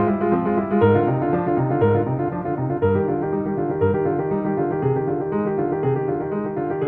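Background piano music with a steady rhythm of repeated notes.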